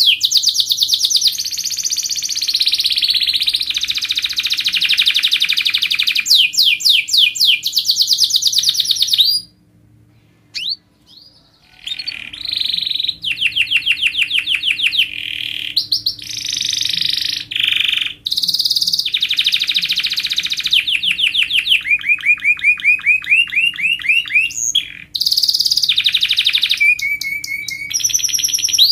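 Domestic canary singing a long, loud song of fast, tight rolls and trills, breaking off for about two seconds about a third of the way through before rolling again.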